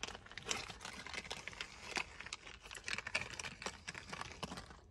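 Irregular small clicks, taps and rustling of a bolt and washer being handled and threaded in by hand into the floor of a center console safe.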